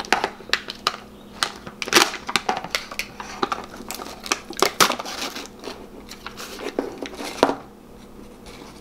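A Pringles can being opened: the plastic lid worked off and the foil seal peeled back, a quick run of sharp crackles and clicks that stops about a second before the end.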